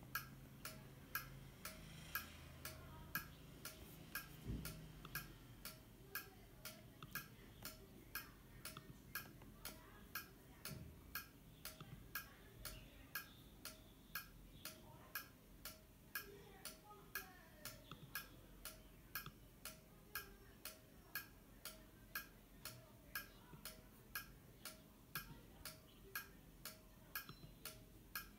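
PLC relay output clicking steadily, just under twice a second, each click a pulse standing in for a spindle Hall sensor, which the control software reads as about 110 RPM.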